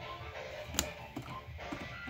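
Music playing from a radio at low volume, with one sharp click about a second in and a couple of fainter clicks after it.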